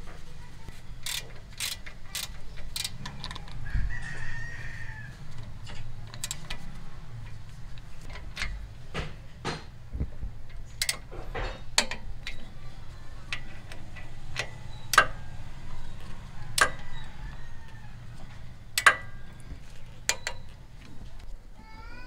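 Irregular metallic clinks and knocks of hand tools and brake parts being handled while a disc brake caliper is fitted during a brake pad replacement, over a steady low hum.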